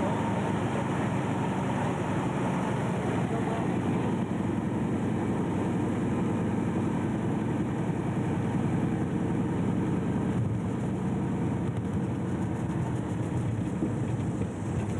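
de Havilland Canada Otter floatplane's engine running steadily in flight, on the approach to a water landing.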